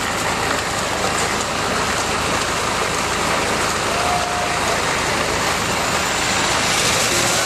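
Steady, even rushing noise of an open-air building site, with no single clear source standing out.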